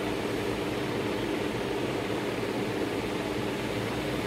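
Steady background hum and hiss, with a faint low tone held throughout.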